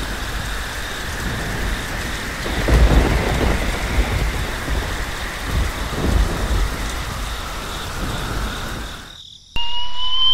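Thunderstorm sound effect: a steady hiss of heavy rain with low rolls of thunder swelling about three and six seconds in. The storm fades out near the end, and a rising whistle-like tone cuts in.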